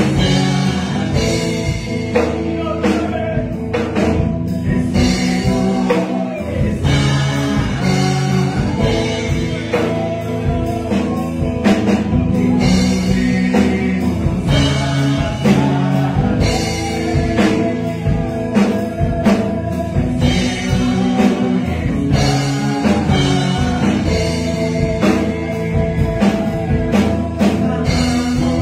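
A man singing a Spanish-language worship song into a microphone, with instrumental backing and a steady beat.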